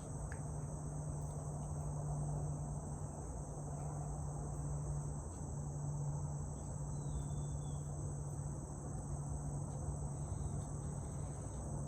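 Insects chirring in a steady high-pitched drone over the continuous low rumble of highway traffic.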